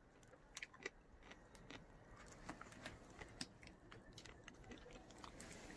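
Near silence with faint, scattered small clicks and crackles.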